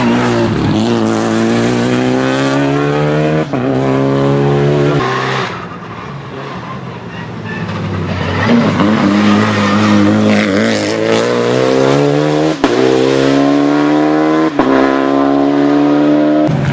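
Renault Clio Rally5's turbocharged four-cylinder engine accelerating hard at full throttle, its pitch rising and snapping down at quick upshifts. It eases off for a couple of seconds partway through, then pulls up through the gears again.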